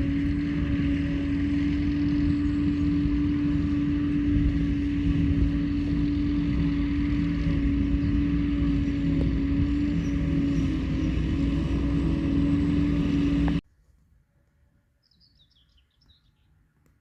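Heavy farm machinery running steadily during silage harvesting, a constant engine drone with a strong steady whine on top. The sound cuts off suddenly about three-quarters of the way through, leaving a few faint bird chirps.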